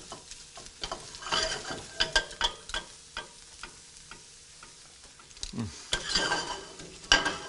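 Arugula sizzling in olive oil in a skillet as it wilts, tossed with metal tongs that click and scrape against the pan many times.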